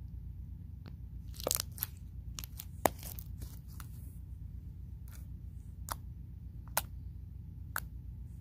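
Slime being squished, pressed and poked by hand, giving irregular sharp clicks and pops: a quick cluster between about one and a half and three seconds in, then single pops about once a second near the end. A steady low hum runs underneath.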